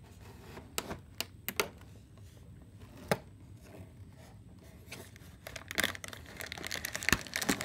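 A perforated cardboard advent calendar door being picked and torn open by fingers: a few separate clicks at first, then a burst of tearing and crinkling cardboard from about five seconds in.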